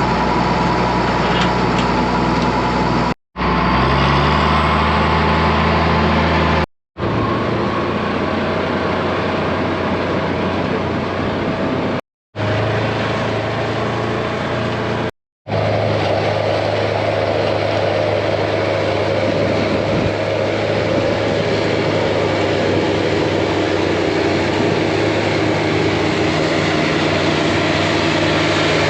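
Tractor engine running steadily while pulling a hay rake, its pitch stepping up about three to four seconds in. The sound is broken by four short silent gaps where the footage is cut.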